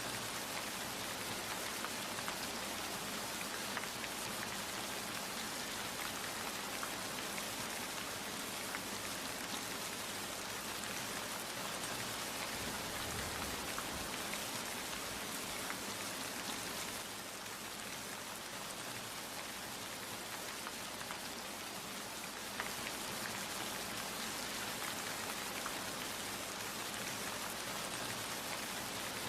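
Steady rain falling, a dense hiss flecked with the ticks of individual drops hitting a surface. It eases slightly for a few seconds past the middle, then picks up again.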